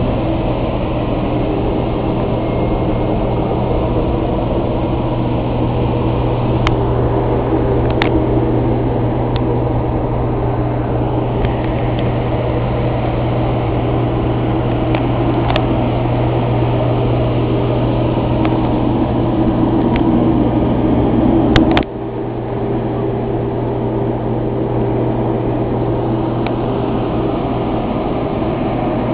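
Loud, steady hum and drone of auxiliary power running for a parked KDC-10 (DC-10-based) tanker, with a few faint clicks. About three quarters of the way through there is a sharp click and the sound briefly drops, then carries on a little quieter.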